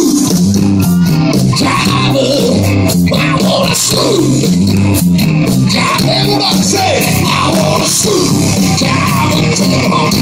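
Live hard rock band playing loud, led by electric guitar over a steady low bass line and regular drum hits.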